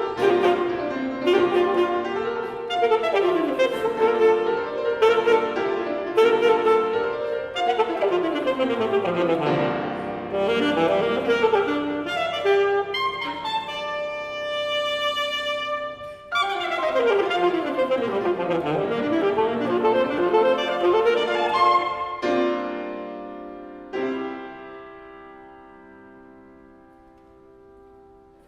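Alto saxophone and piano playing a fast contemporary classical duo with sweeping up-and-down runs and a high held note that breaks off suddenly. Near the end the playing stops and a final chord rings out and dies away.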